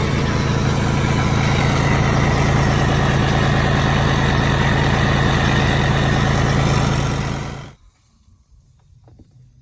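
An engine idling steadily with a low hum, then shut off abruptly near the end.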